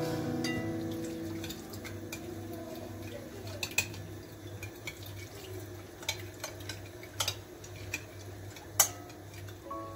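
Metal spoon stirring paste and hot water in a glass bowl, with a liquid swishing and sharp clinks of spoon on glass, the loudest near the end. Soft background music with held notes over the first few seconds.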